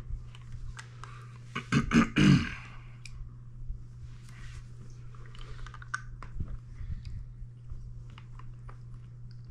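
Faint wet clicks and slurps of a man sucking on a hard-candy lollipop, the 9-million-Scoville cinnamon Toe of Satan, over a steady low hum. About two seconds in come three short, loud, breathy bursts from the mouth.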